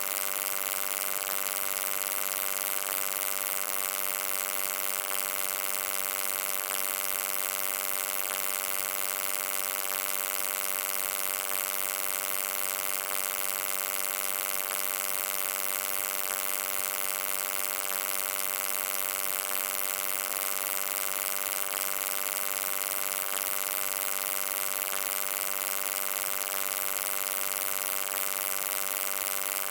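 Steady electric hum: a buzz with many evenly spaced overtones over a bright hiss, unchanging throughout.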